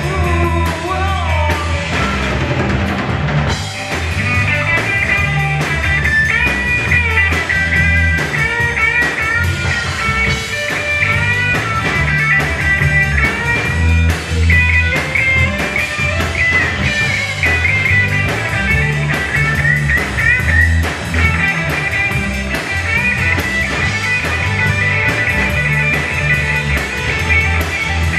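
Live rock band playing an instrumental passage: drum kit, bass guitar and electric guitars, with a lead line bending in pitch over the rhythm from about four seconds in.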